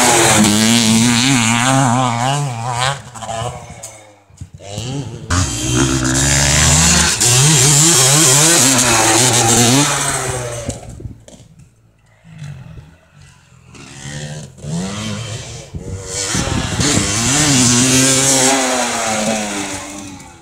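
Yamaha YZ250 single-cylinder two-stroke motocross bike on the track, its engine revving up and falling back again and again with throttle and gear changes. It is loud in three spells, with quieter stretches between them as the bike moves farther off, and it fades near the end.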